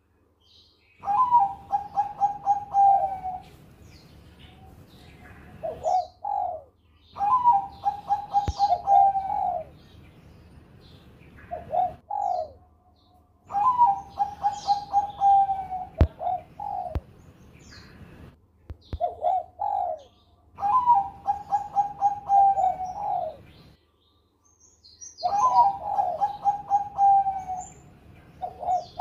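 Zebra dove (perkutut Bangkok) singing: five phrases about six seconds apart, each a short lead-in note followed by a quick run of staccato coos, with a few faint clicks between them.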